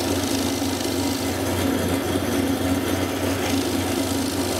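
Drill press running steadily with a 1/4-inch plug cutter boring plugs out of a piece of scrap wood: a constant motor hum under the rasp of the cutter in the wood.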